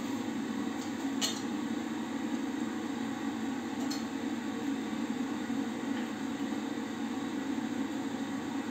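Steady low noise in a small tiled bathroom, with a few faint clicks as a toothbrush and toothpaste tube are handled at the washbasin.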